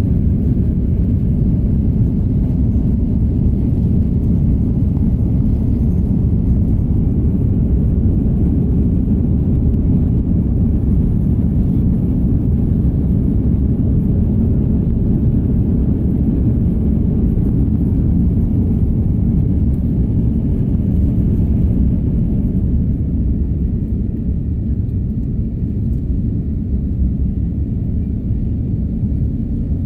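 Steady low rumble of an airliner's jet engines and airflow, heard inside the passenger cabin during the climb after takeoff. It becomes a little quieter in the last third.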